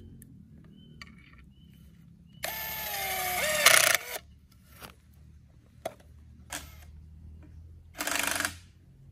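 Cordless drill driving a screw through a metal bracket into a pole: the motor whirs in one run of about a second and a half, its pitch dipping near the end as the screw tightens. A few light clicks follow, then a short burst of noise near the end.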